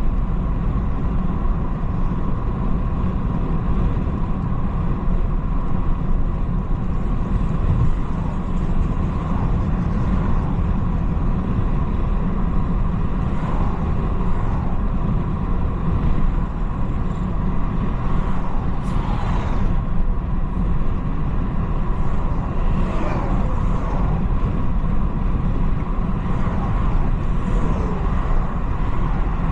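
BMW 330i (G20) driving at a steady pace: a constant low road-and-engine rumble from its 2.0-litre turbocharged four-cylinder, with a few faint falling sweeps now and then.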